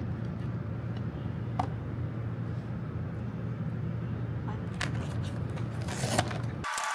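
A steady low hum with a few light clicks and taps scattered through it. Near the end it cuts abruptly to a brighter hiss carrying a thin steady tone.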